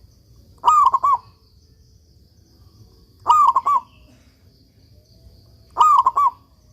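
Zebra dove (local perkutut) cooing: three short phrases of about three quick notes each, repeated about every two and a half seconds.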